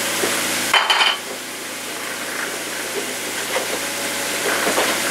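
Bullet-casing cleaner (case tumbler) running on the floor, a steady noisy hum. Over it, juicer parts are handled on the counter, with a short clatter of knocks about a second in and a few lighter knocks near the end.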